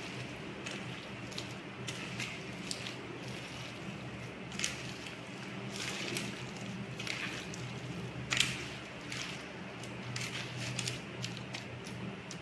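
A hand mixing chicken pieces with chopped spring onions and seasoning in a steel bowl, making irregular wet squishing and soft clicks, with a sharper click a little past the middle. A steady low hum runs underneath.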